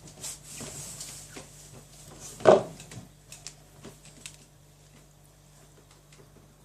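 A dog nosing at its food bowl on the floor makes soft scuffs and clicks, with one short, loud squeak about two and a half seconds in, like a nose rubbing on the floor. It then goes quieter.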